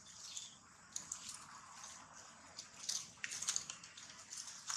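Dry fallen leaves crackling and rustling in short, irregular bursts as baby macaques scuffle and tumble over them.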